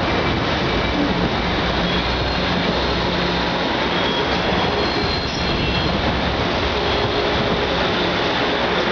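Amtrak Pacific Surfliner bilevel passenger cars rolling slowly past as the train departs, a steady rumble of steel wheels on rail with faint, thin wheel squeals now and then.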